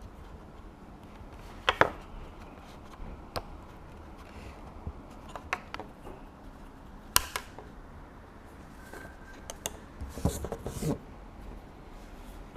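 Small plastic parts of a Moov fitness sensor and its strap connector being handled and fitted together: scattered sharp clicks and light knocks. The sharpest click comes about seven seconds in, and a short cluster of knocks and rustling comes near the end.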